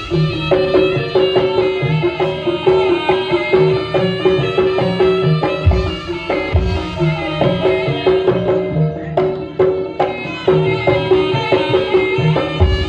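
Jaranan music from an East Javanese ensemble: hand drums and pitched gong-chime notes playing a steady, repeating pattern.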